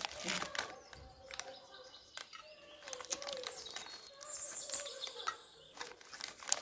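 Plastic-and-foil Oreo wrapper crinkling in bursts as the cookie packet is pulled open and the stack slid out.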